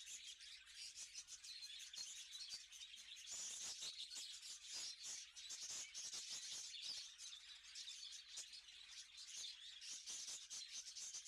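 A flock of budgerigars chattering, a faint, fast and continuous twittering of many birds at once, busiest a few seconds in.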